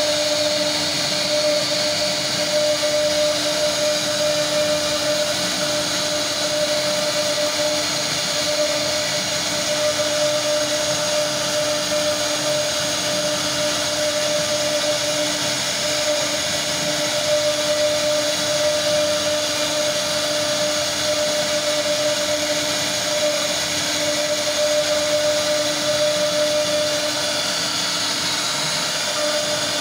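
CNC router spindle running steadily while its fine carving bit cuts a relief into a wooden board: a steady whine over the hiss of the cut.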